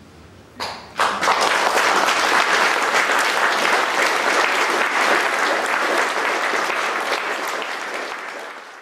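Audience applauding at the end of a live song: the clapping breaks out about a second in, dense and steady, and eases a little near the end.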